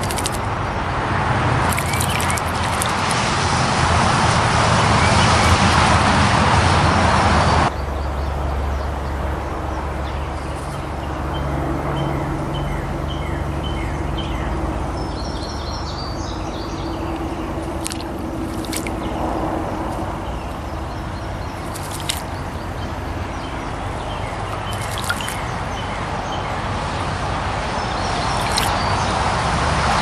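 Steady road traffic noise that drops abruptly about eight seconds in, with small birds splashing as they bathe in a concrete birdbath and other birds chirping faintly now and then.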